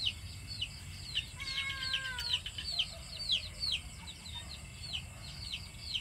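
Chicks peeping: a steady run of short, high, falling cheeps, about three a second. About a second and a half in, a longer, lower, slightly falling call sounds over them for about a second.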